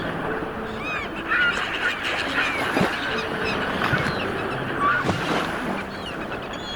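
A flock of waterfowl calling: many short honking calls that overlap one another, over a constant noisy background.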